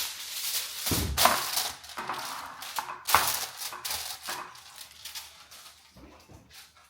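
Aluminum foil crinkling and rustling as it is wrapped and pressed down, louder at first and tapering off toward the end.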